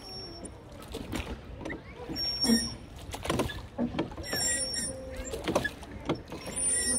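Wooden oars of a rowboat being pulled, knocking in their rowlocks every second or so at uneven intervals.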